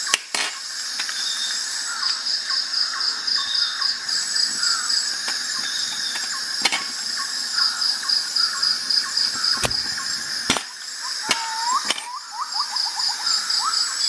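Insects chirping steadily in a fast pulsing rhythm, with small bird-like chirps. About five sharp clicks come through it, and there is a short run of rising chirps near the end.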